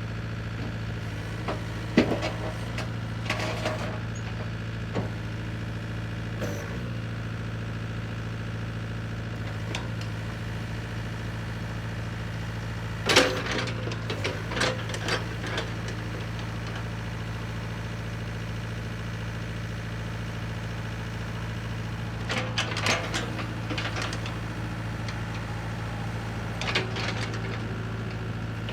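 John Deere 60D mini excavator's diesel engine running steadily at one speed. Several short bursts of knocking and clanking sound over it.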